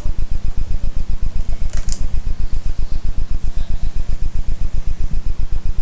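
Steady low hum pulsing rapidly and evenly, about ten times a second, with a faint click about two seconds in.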